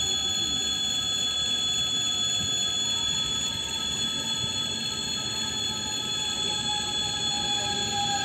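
ES2G Lastochka electric train pulling into the platform: a whine of several steady tones that slowly falls in pitch as the train slows, over continuous rumbling rail noise.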